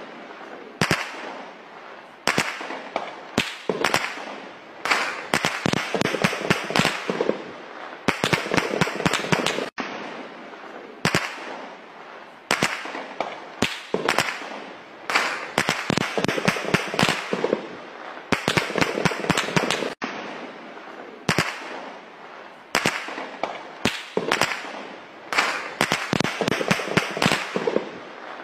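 Gunfire: volleys of rapid, sharp shots with an echo, recurring every second or two, some as quick strings of shots.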